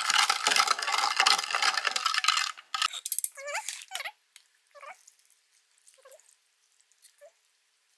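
Spoon stirring the soy-sauce pickling liquid in a pot, stopping about two and a half seconds in; then a dog whines several times, short dipping-and-rising whimpers about a second apart.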